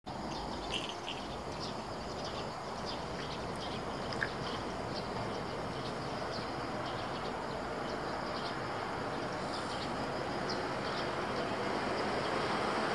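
Train's running noise heard from inside the car as it pulls slowly out of the station, a steady rumble that grows a little louder near the end as it gathers speed. Faint short high chirps sound throughout.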